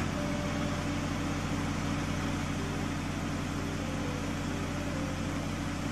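Cartoon sound effect of a farm vehicle's engine running with a steady low hum.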